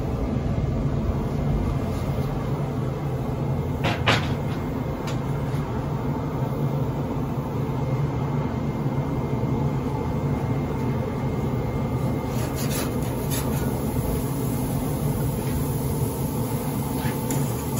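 Weber SmokeFire pellet grill running hot, its fan giving a steady low hum and rumble. A few short knocks sound as patties go on the grate, the loudest about four seconds in.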